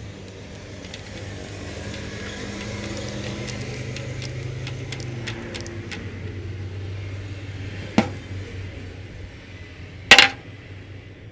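Light metallic clicks and taps as a homemade steel chuck key's bevel gear works the teeth of a drill's keyed chuck, with a single sharp click about eight seconds in. A loud, brief metal clatter comes near the end, over a low steady hum.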